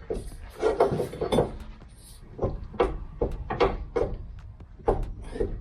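About a dozen irregular knocks and clunks, with a short pause about a third of the way in, from the front suspension of a Toyota Celica being handled to check an end joint for play. No play is found in the joint.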